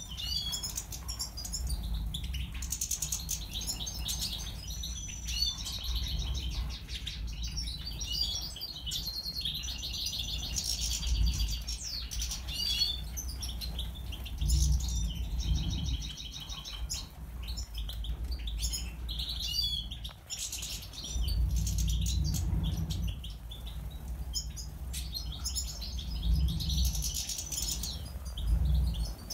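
Aviary goldfinches chirping and twittering continually, with rapid buzzy trills and occasional wing flutters. A low rumble rises and falls underneath.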